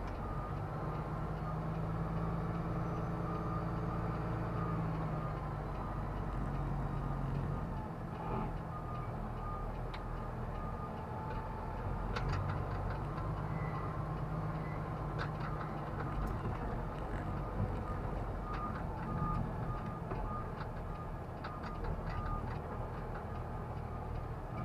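Truck engine running inside the cab while driving, its pitch stepping up and down as the gears are worked. A faint repeated beep comes and goes, with scattered small clicks and rattles.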